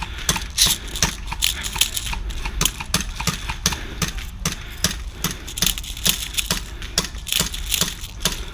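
Airsoft guns firing in a skirmish: sharp single cracks at irregular intervals, a few a second, over a steady low rumble.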